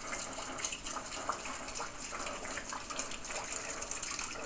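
Rainwater running off a roof and splashing into a white plastic bucket: a steady rush of water with many small irregular drips and splashes.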